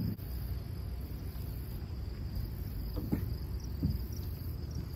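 Steady high insect chirring over a low, even outdoor rumble, with a couple of brief faint sounds about three and four seconds in.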